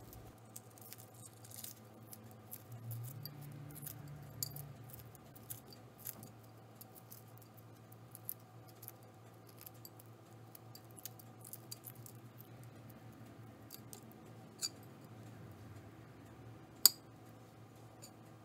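Shell of a hard-boiled egg being cracked and peeled by hand: a run of small, crisp crackling clicks as bits of shell break away, with one sharper click near the end.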